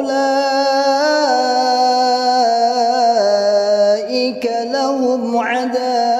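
Melodic Qur'an recitation in tajwid style: one voice holding long, ornamented notes that waver and step up and down in pitch, with short breaks for breath about four and five and a half seconds in.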